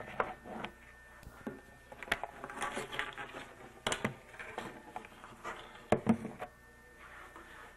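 Camcorder handling noise: scattered knocks, clicks and rubbing as the camera is moved about and set up, with some cloth rustle.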